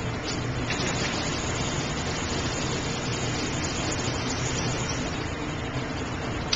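Steady rushing noise in an indoor pistol range, with one short sharp crack near the end.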